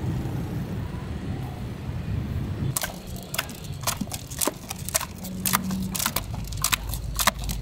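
A bundle of bamboo sticks whisking martabak batter in a plastic bucket, clacking sharply against the bucket in quick, irregular strokes from about three seconds in. A low street rumble comes before it.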